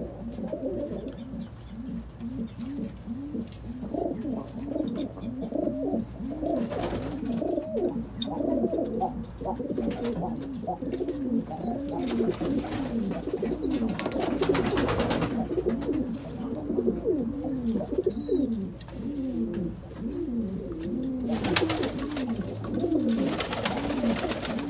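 Several domestic pigeons of the Pakistani flying breed cooing continuously, many overlapping rising-and-falling coos repeating back to back. A few short spells of rustling come in between.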